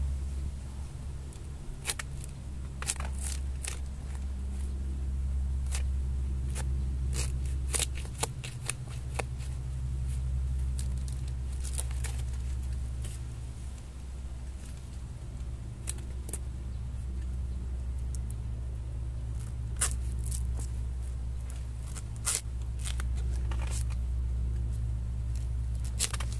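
Knife cutting into young bamboo shoots, with sharp snaps and cracks as the shoots and their husks are cut and broken off, and rustling of dry leaf litter. A steady low hum runs underneath throughout.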